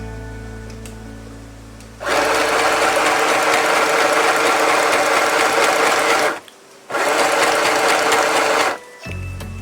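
Sew Simple portable electric sewing machine stitching fabric under foot-pedal control. It runs for about four seconds starting two seconds in, stops for half a second, then runs again for about two seconds.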